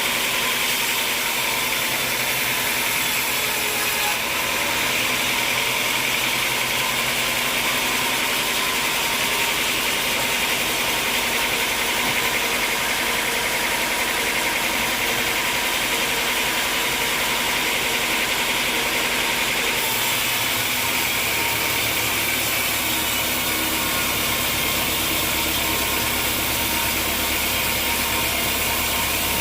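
Steady running of an engine-driven machine, an even noise with faint held tones, and a deeper hum joining about two-thirds of the way through.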